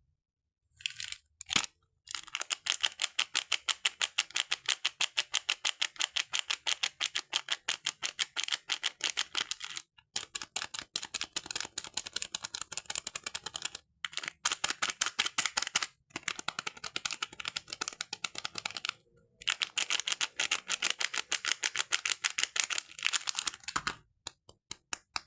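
Hands working a bar of soap: fast, crisp clicks, about ten a second, in runs of a few seconds with short breaks between them.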